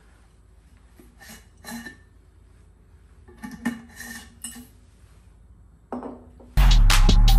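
Glass storage jar with a metal lid being handled and opened: a few scattered clinks and short clatters of glass and metal. About two thirds of the way in, loud music with a beat starts abruptly.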